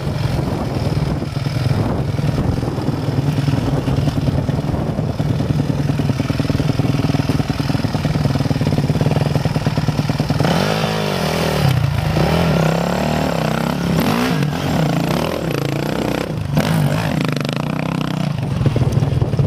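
Kawasaki dirt bike engine held at low, steady revs while the bike is worked slowly over a row of half-buried tyres, then revved up and down repeatedly from about halfway through.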